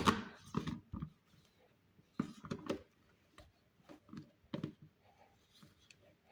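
Irregular knocks and clatters of kitchen items being handled. The loudest comes right at the start, then a cluster about two seconds in and a few more around four and a half seconds.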